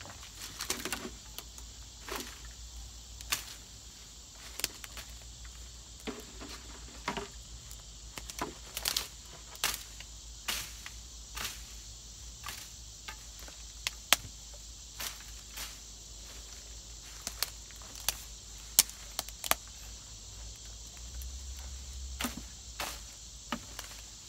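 Manual cane cutter swung through tall grass and weeds: sharp swishing strokes at an irregular pace of about one a second, with crickets chirping steadily behind.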